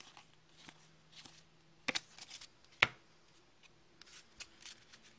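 Hockey trading cards being flipped through by hand: soft scattered card rustles and flicks, with a pair of sharper clicks just before two seconds in and one louder snap near the middle.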